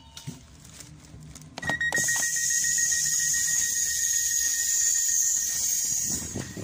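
Train passenger door opening after its button is pressed: a click, then a steady high warning tone over a loud hiss for about four seconds, stopping abruptly.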